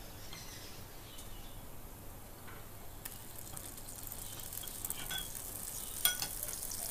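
Empty nonstick pan heating on a gas stove, giving a faint hiss and sizzle that grows louder about halfway through, with a couple of sharp crackles about five and six seconds in.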